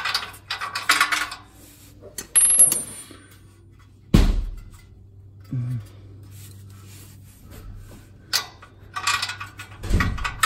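Metal clinking and rattling in several short bursts as the oxygen sensor and the catalytic converter's sheet-metal heat shield are handled, with a dull thud about four seconds in and another near the end.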